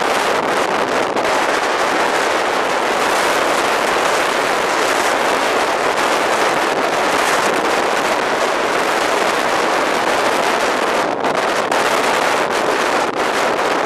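Gale-force storm wind, Beaufort 8–9, blowing across the microphone: a loud, unbroken rushing noise.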